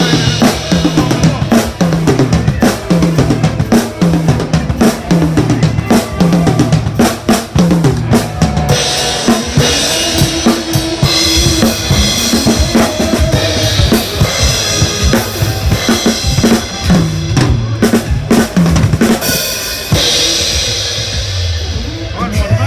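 A live drum kit playing a steady beat, with kick and snare prominent over a repeating low pitched line. Cymbals wash in from about nine seconds in.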